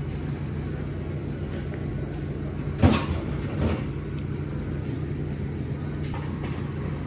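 Steady low hum of a conveyor-belt sushi restaurant's background noise, with a sharp clunk about three seconds in and a softer knock just after.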